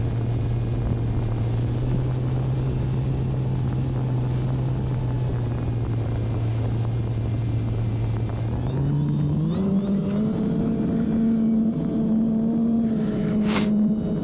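Electric motor and propeller of an OMP Bighorn RC airplane running steadily at part throttle over a rush of airflow. About two-thirds of the way through the pitch rises in steps as the throttle is opened for a climb, then holds at the higher note.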